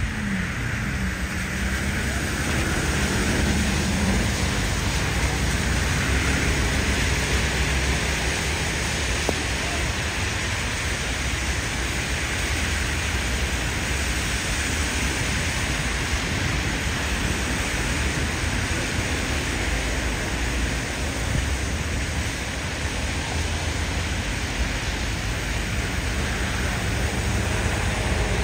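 Steady rushing noise of falling water, with a low rumble underneath.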